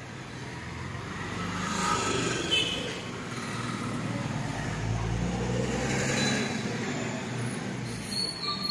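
Motor vehicle engine noise swelling and fading twice, about two seconds in and again around six seconds in, like traffic going past.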